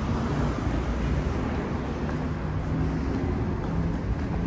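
City street traffic: a steady hum of cars passing and idling, with a low engine drone.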